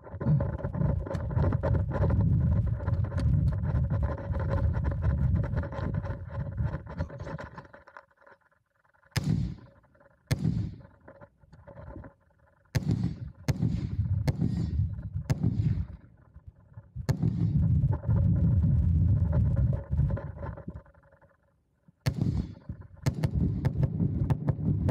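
Heavy rumble of wind and movement on the body-worn camera's microphone while running with a rifle, stopping and starting a few times. Sharp gunshot cracks ring out a dozen or so times across the stretch.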